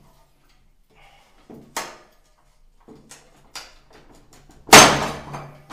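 Manual rail tile cutter (Walmer MGZ 800) working a narrow tile strip: a few light clicks and knocks from the handle and carriage, then one loud sharp crack near the end as the breaker snaps the strip off.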